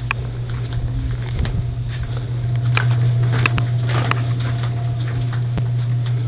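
Steady low hum throughout, with a few scattered sharp clicks and taps over it.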